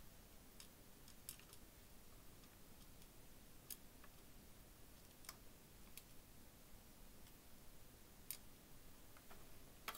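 Faint, irregular small plastic clicks as Perler beads are set one by one onto a plastic pegboard with tweezers, against near silence.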